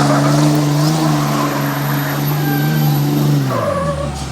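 Diesel engine held at high revs with the tyres spinning in a burnout, then the revs fall away near the end.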